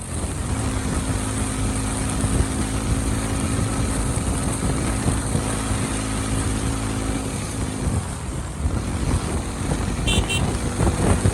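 Motorcycle engine running at a steady speed on the move. The engine note drops off about eight seconds in. A brief high beeping comes near the end.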